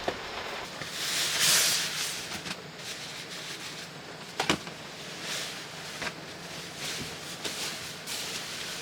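Rain hissing steadily and swelling now and then, with a few sharp taps; the clearest tap comes about halfway through.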